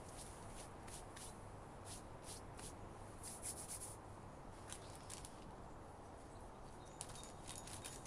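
Nutshells crackling in short clusters of faint clicks, from a small animal gnawing a hand-fed nut. A faint high bird note comes near the end.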